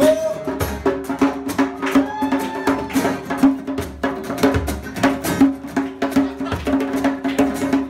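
Live acoustic band playing an instrumental passage: quick, fairly regular wooden percussion hits over a steadily held chord.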